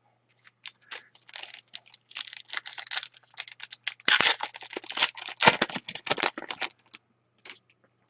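The wrapper of a hockey card pack is torn open and crinkled: a rapid run of crackles and rustles that is densest in the middle and thins to a few scattered clicks near the end.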